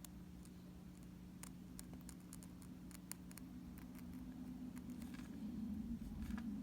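Disposable microblading U-blade scratching strokes into a banana peel: faint, scattered little scratches and clicks, a bit busier near the end, over a steady low hum.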